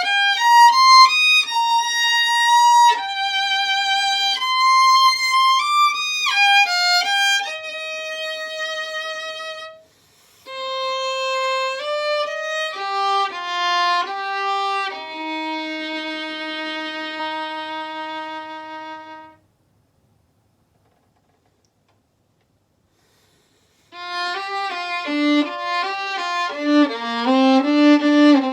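Violin playing a slow, gentle melody with vibrato in two phrases, the second ending on a long held low note. Then about four seconds of silence before the playing starts again near the end.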